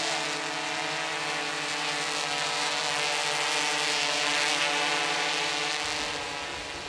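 DJI Inspire 1 quadcopter's rotors buzzing steadily in flight, a stack of steady pitched tones over a hiss, fading near the end.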